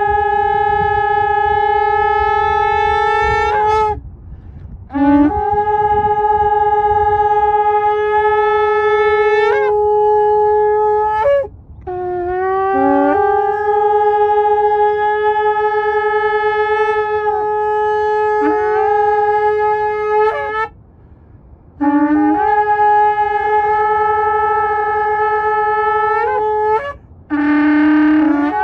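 Two long spiral shofars blown together in about five long held blasts, each opening with a brief lower note that jumps up to a higher sustained tone. The two horns overlap and break off at slightly different moments, with short pauses between blasts.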